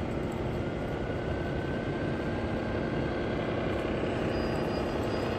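Radio-controlled model tractor-trailer with a child riding on it, driving slowly: a steady motor hum over the even background noise of a large exhibition hall.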